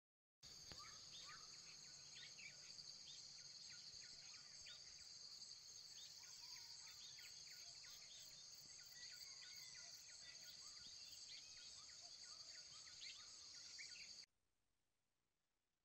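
Faint forest ambience: insects droning in a steady high-pitched chorus, with many short bird chirps and calls over it. It starts suddenly and cuts off suddenly about fourteen seconds in.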